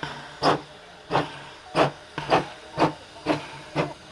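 Exhaust beats of a Baldwin-built narrow-gauge steam locomotive working slowly along the line: sharp, hissing chuffs about two a second, gradually quickening as it gathers speed.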